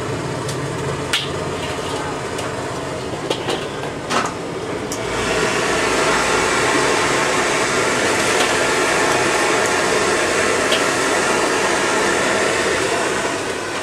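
A few sharp metal clinks of a spatula against plates and the wok, then about five seconds in a louder, steady hissing sizzle of the stir-fry wok on the stall's stove.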